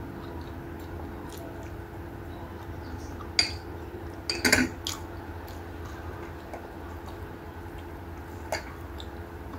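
Dishes clinking as food is eaten by hand from a plate and a small glass bowl: one sharp clink about three and a half seconds in, a louder cluster of clinks about a second later, and a single clink near the end, over a steady low hum.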